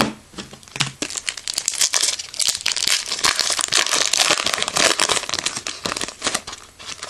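Shiny foil wrapper of a baseball card pack crinkling as it is torn open and the cards are slid out: a dense, rapid crackling rustle that starts about a second in and dies away near the end.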